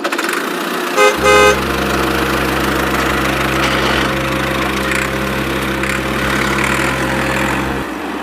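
A horn toots twice in quick succession about a second in. Then a steady low motor hum runs until it cuts off suddenly near the end, over a constant hiss.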